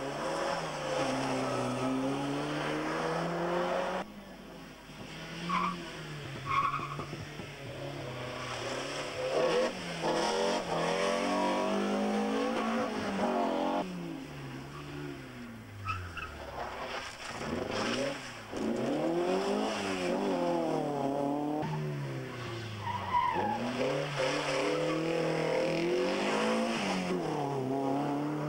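Rally cars, including Opel Kadetts, passing one after another at full stage pace. Their four-cylinder engines rev up hard through the gears, dropping in pitch at each change, and fall away as each car goes by. There are brief tyre squeals now and then.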